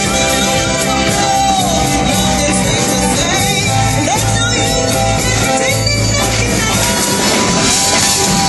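Live rock band with violins playing a song, with a lead singer over a steady bass line and drums.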